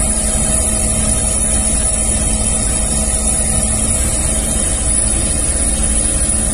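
Helicopter engine and rotor noise heard from inside the cabin: a steady, loud drone with a constant hum.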